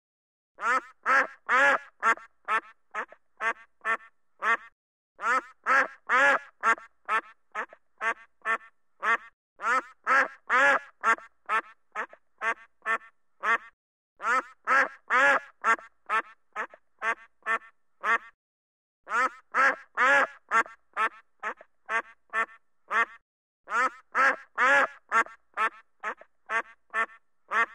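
Duck quacking in quick repeated runs of about three quacks a second. Each run swells and fades, with short pauses between the runs.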